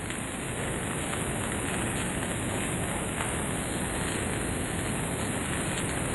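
Steady rainfall, a continuous even hiss with a few faint drop ticks, growing slightly louder over the first couple of seconds.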